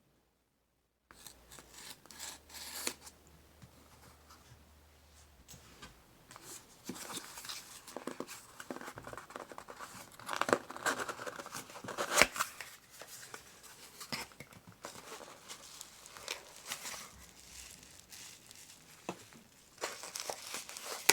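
Packaging being opened and handled by hand: irregular crinkling, rustling and tearing, with a few sharp clicks, starting about a second in and loudest about ten to twelve seconds in.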